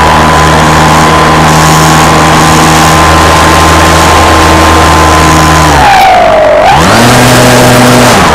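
Radio-controlled aircraft's motor and propeller heard from its onboard camera: a steady high whine over rushing noise. Near the end the pitch drops as the throttle is eased, swings back up about seven seconds in, then drops again.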